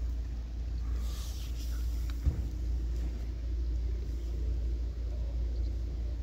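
A steady low rumble, with a short knock about two seconds in.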